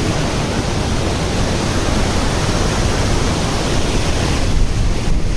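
Loud, steady rush of water from a waterfall. The hiss thins in the high end near the end.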